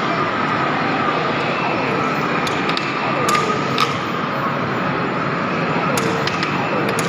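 Air hockey game: a plastic puck and mallets clack sharply against the table a few times, loudest about three and a half seconds in, over a steady arcade din.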